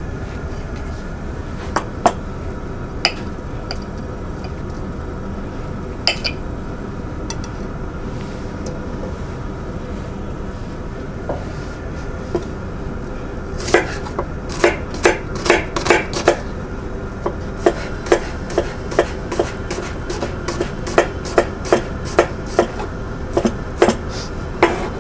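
Chef's knife chopping shallots on a wooden cutting board: a few scattered knocks at first, then from about halfway a steady run of quick chops, roughly two a second.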